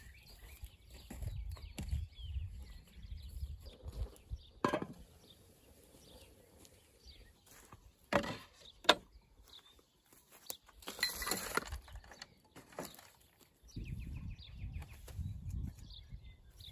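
A wooden chopping board is handled and set down on a wooden table. There are a few sharp knocks, the loudest two close together about eight seconds in, then a short burst of rustling. A low rumble comes and goes underneath.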